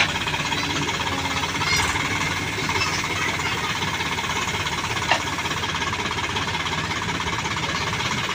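Diesel engines of a backhoe loader and a tractor running steadily while the backhoe digs mud, with a short sharp knock about five seconds in.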